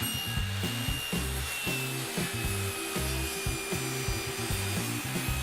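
Circular saw blade of a small saw table cutting a tenon in wood with a tenon jig: a steady cutting noise with a thin high whine that sags slightly, over background music with a steady beat.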